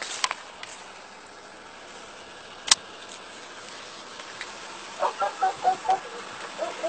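Handling noise with a few small clicks, and one sharp crack about two and a half seconds in, the loudest sound. Near the end a wavering pitched sound comes in.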